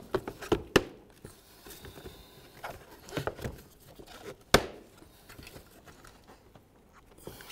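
Plastic grille locking tabs being pressed into a plastic bumper cover: a few sharp clicks and knocks, several in the first second and the loudest a little past halfway, with soft rubbing and creaking of plastic between.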